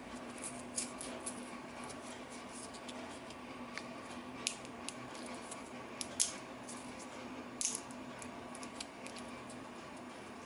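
Scattered short clicks and light scrapes, the sound of small handling noises, over a steady low hum.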